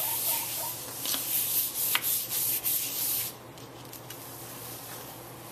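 A hand rubbing over the back of a sheet of paper laid on a gel printing plate: a dry, hissing rub in repeated strokes that stops about three seconds in.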